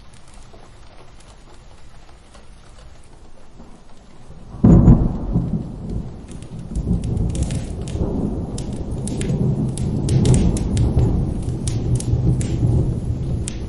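Steady rain, then, about a third of the way in, a sudden thunderclap that rolls on as a loud low rumble to the end. Scattered sharp crackles sound over the rumble.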